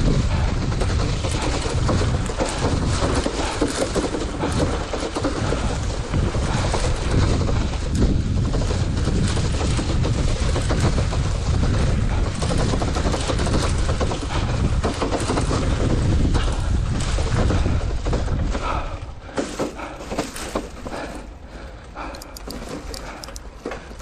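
Rental city bicycle rattling and clattering over a bumpy grass-and-dirt track, its wire front basket and frame shaking with every bump. About nineteen seconds in it turns much quieter, with only scattered rattles, as it rolls onto a smoother concrete path.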